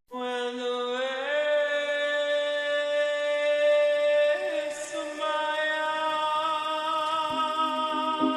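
Background music that starts suddenly with long held notes, sung or synth-like, shifting pitch a couple of times.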